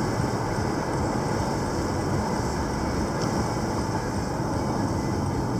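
Steady road noise inside a moving car's cabin: tyre rumble and engine hum while cruising, even throughout.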